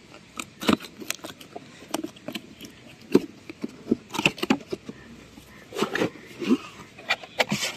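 Cardboard laptop box being handled and pried open: irregular clicks, scrapes and crackles as fingers pull at its tape-sealed tuck-in flap.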